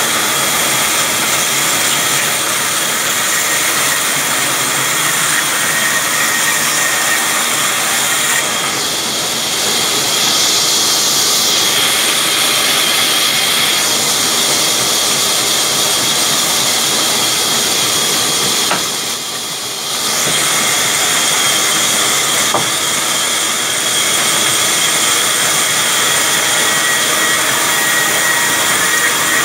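Large sawmill band saw running and sawing a log lengthwise: a loud, steady hiss with a high whine, dropping off briefly about two-thirds of the way through before picking up again.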